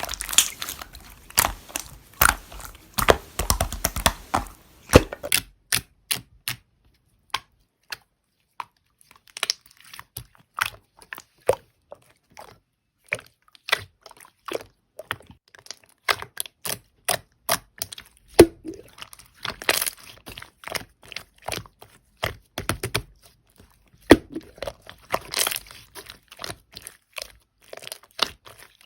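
Slime being pressed and worked by hand, making a run of sharp clicks and crackling pops, with a pause of a few seconds about seven seconds in.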